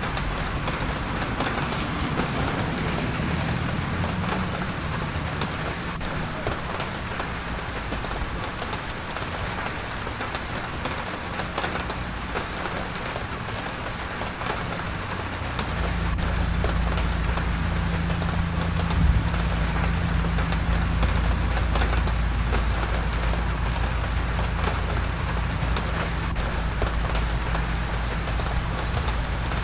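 Steady rain, many small drop impacts, over a low rumble that grows louder about halfway through, with one brief knock a little after that.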